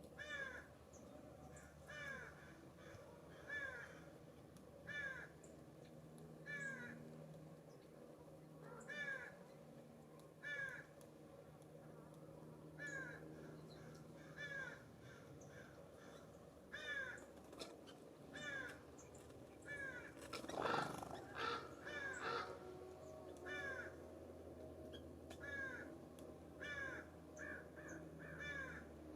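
A corvid calling: repeated harsh, caw-like calls, each falling in pitch, about one every second or two. About twenty seconds in there is a brief louder noisy burst.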